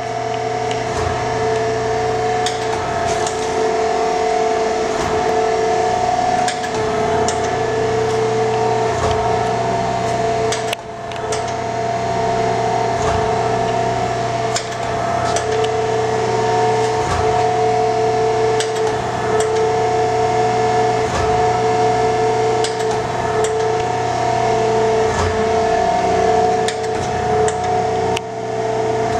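Elb Perfekt B9 horizontal surface grinder running under power: a steady machine hum made of several held tones, with scattered light clicks.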